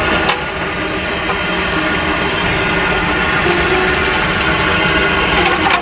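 Fishing boat's engine running steadily at a constant speed.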